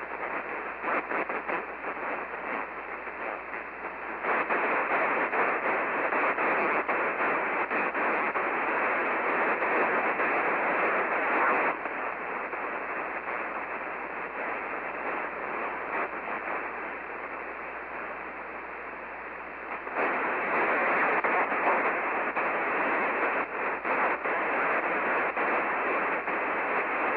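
Radio static hissing from a CB radio's speaker, with the thin, narrow sound of radio audio. It gets louder about four seconds in, drops back about twelve seconds in, and rises again about twenty seconds in.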